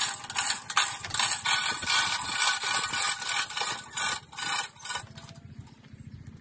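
Hand chain of a manual chain hoist rattling and clattering as it is pulled hand over hand to move a heavy log. It starts abruptly and stops about five seconds in.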